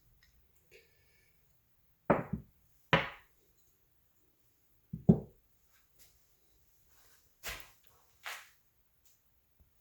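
Tools and metal parts handled on a workbench: a series of sharp knocks and clunks a second or two apart, the loudest in the first half and two softer ones near the end.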